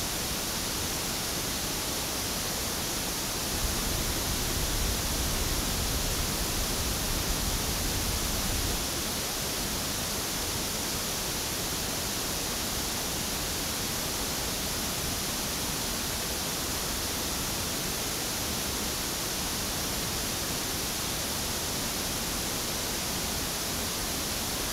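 Steady pink-noise test signal from a loudspeaker, picked up by an Audix OM7 dynamic microphone. The bass is fuller from about four to nine seconds in and thinner after, as the low end of the mic signal changes.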